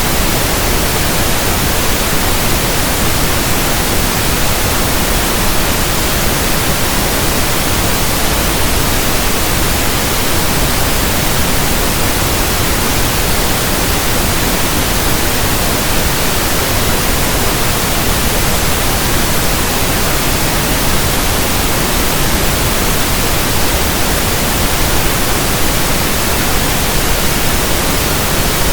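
Steady pink noise: an even, unchanging hiss across the whole range, with no tones or events in it.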